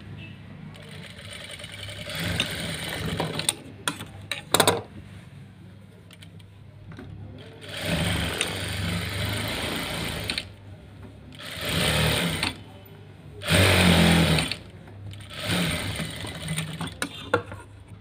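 Electric sewing machine stitching a seam in several short runs, starting and stopping as the fabric is guided, with a few sharp clicks about four seconds in.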